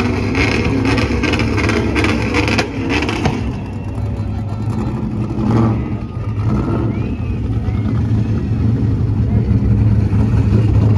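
Pickup truck engine running hard at high revs during a burnout, a steady loud note that grows louder over the second half, with crowd voices.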